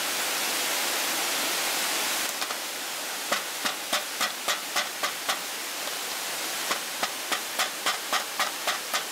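A large three-tined metal fork stabbed again and again into raw chicken thigh, its tines tapping the plastic cutting board about four times a second in two runs, piercing the meat all over. A steady hiss lies underneath.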